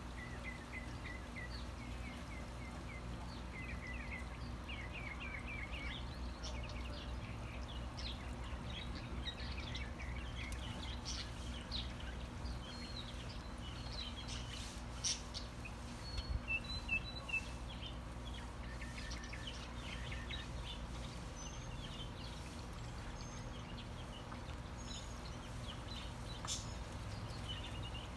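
Small birds chirping and trilling in short, scattered calls over a low steady hum, with a few sharp clicks about halfway through.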